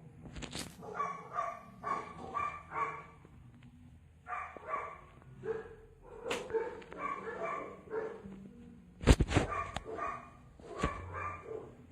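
A dog barking and yapping in quick groups of short calls, with a few sharp knocks about nine seconds in.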